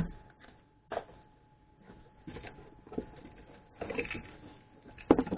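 Items being handled and unpacked from a cardboard box: scattered clicks and short bursts of rustling of packing material and parts, a few separate handling noises over a faint steady hum.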